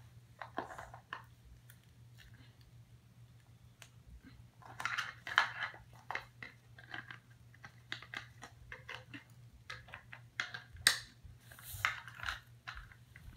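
Small plastic toy figures and their display stand being handled: scattered clicks, taps and short rustles, busiest about five seconds in and again about eleven seconds in, over a steady low hum.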